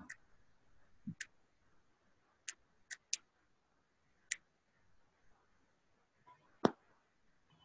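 Quiet room tone broken by about six sharp, scattered clicks, the loudest about two-thirds of the way in.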